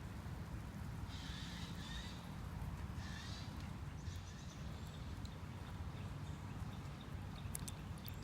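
Outdoor waterside ambience: a steady low rumble, with two short harsh bird calls about one and three seconds in.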